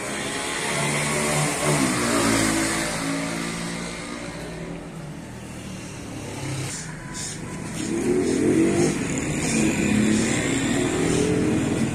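Motor vehicles passing on the road, their engines rising and falling in pitch. One pass swells about two seconds in, and a louder one comes near the end.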